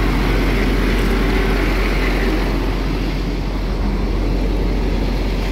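MAN truck's diesel engine running steadily at hand-set raised revs, driving the truck's pump to transfer digestate; a loud, even hum with no change in pitch.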